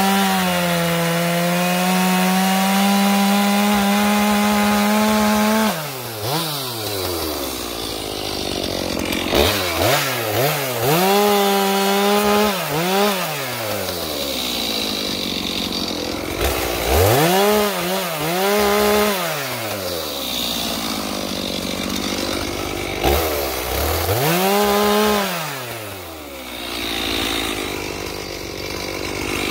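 Stihl MS391 two-stroke chainsaw held at full throttle with its bar in a log for about six seconds, then dropping to idle and revved up and back down several times.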